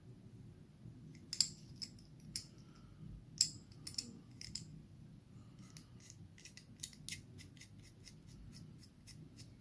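Small, sharp metallic clicks from handling a watch and watchmaker's tools: scattered single clicks at first, then a quicker run of lighter ticks, about three a second, in the second half.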